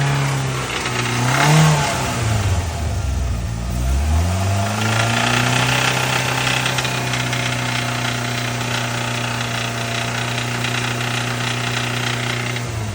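Engine with rod knock, the knocking of a worn connecting-rod bearing. Its revs fall away over the first few seconds with a brief blip, sag lowest around three to four seconds in, then pick back up and settle into a steady idle.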